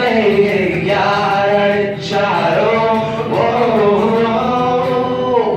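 Live singing of a Tamil rock song, a voice holding long, gliding notes over guitar accompaniment, in two long phrases.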